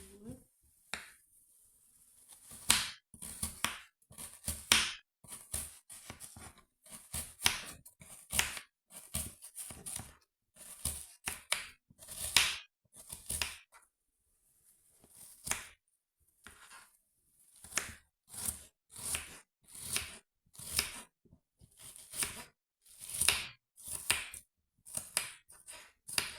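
Kitchen knife cutting through an onion on a chopping board: a steady run of crisp separate strokes, about one or two a second.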